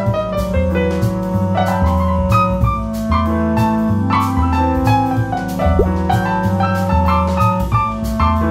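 Smooth jazz instrumental: piano chords and melody over a bass line that changes note about every half second, with light percussion hits keeping a steady beat.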